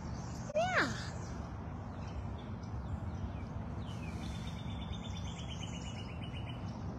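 Outdoor animal sounds: one short falling call about half a second in, then a rapid high bird trill lasting about two seconds from about four seconds in, over a steady low background noise.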